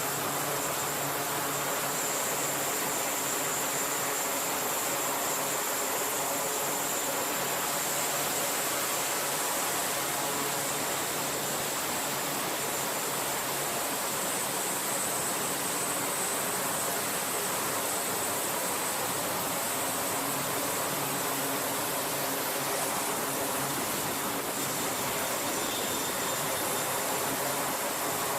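Jet aircraft engines running on a carrier flight deck: a steady roar with a thin high turbine whine over it.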